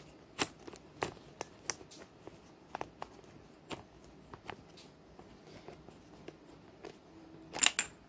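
Small objects being handled: scattered light clicks and taps, with a louder quick cluster of clicks near the end.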